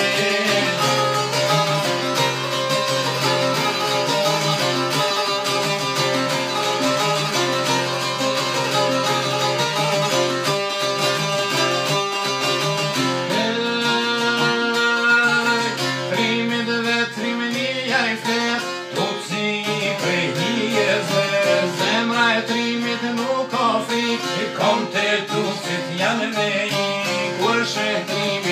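A large bowl-backed lute and a small long-necked lute plucked together in a lively folk tune, an instrumental passage between sung verses.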